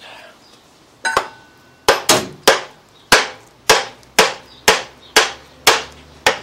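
A hammer striking the cylinder head of a GM Family 1 1.4 L engine about a dozen times, roughly two blows a second, each sharp and ringing briefly, to knock the head loose from the block.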